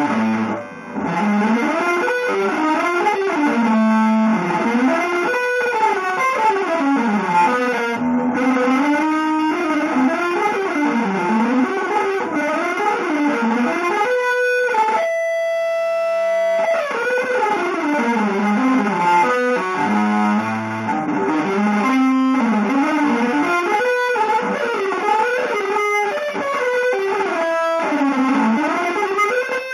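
Electric guitar playing fast, winding melodic runs that rise and fall in pitch, with one long held note about halfway through.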